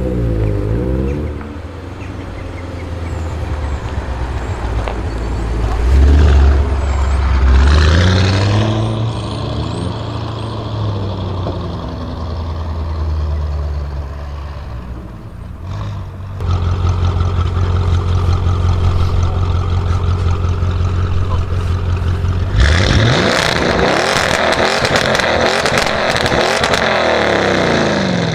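Audi RS6 Avant C7's twin-turbo V8 through a Milltek exhaust, running with a brief rev early on and then a steady loud drone. Near the end it accelerates hard, the pitch climbing fast, then comes a loud stretch with the engine note sliding down.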